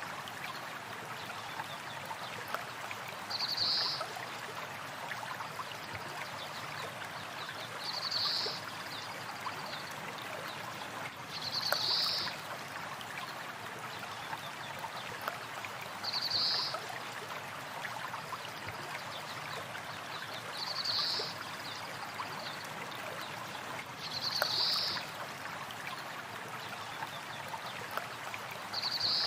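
Steady rushing of flowing river water, with a short, high bird call repeating about every four seconds.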